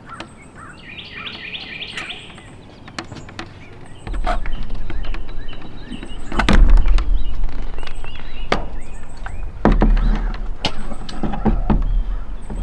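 Birds chirping in a short run, then from about four seconds in a loud low rumble with sharp knocks and thumps as a large solar panel's metal frame is hauled up over the edge of an aluminium truck roof against a steel roof rack.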